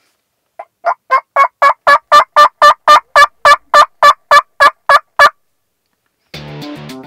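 Turkey call worked by a hunter: a long, evenly paced series of about eighteen yelps, roughly four a second, growing louder over the first few notes. Music starts near the end.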